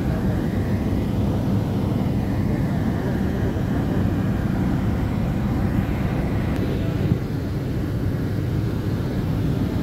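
Steady rumble of a car driving along a road, heard from inside the moving car: engine, tyre and wind noise, strongest in the low range.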